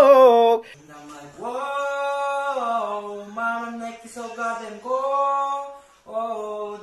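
A man singing a cappella. A held note ends about half a second in, then another man sings slow, drawn-out phrases with no accompaniment.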